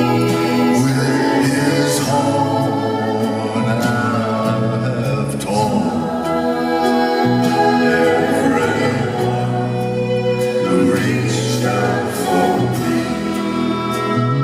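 Music: a band playing a slow song with long held chords and singing voices over it.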